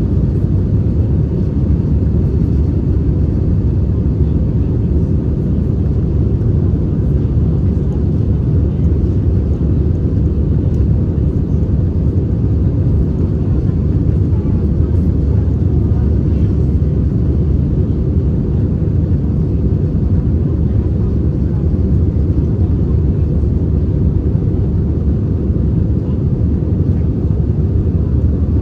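Steady low rumble inside the cabin of an Airbus A320-214 in flight: its CFM56 turbofan engines and the rush of air over the fuselage, heard from a window seat.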